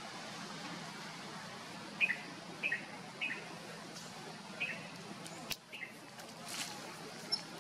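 A bird chirping: five short calls in the first part, each a quick pair of high notes stepping down in pitch, over a faint steady hiss.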